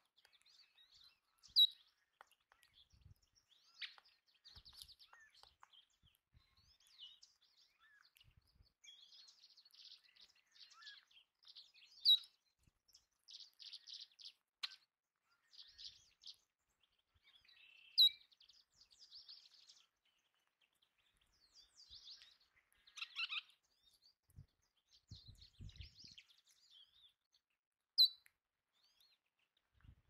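Belding's ground squirrels squeaking: four loud, sharp, high squeaks spread several seconds apart, with softer high chirping and twittering between them.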